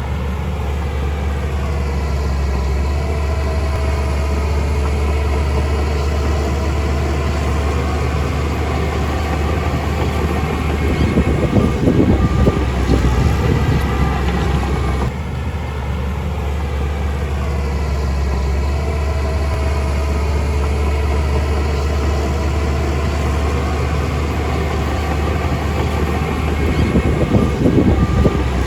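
Heavy machine's diesel engine running with a steady low drone, rougher and louder for a couple of seconds about eleven seconds in and again near the end.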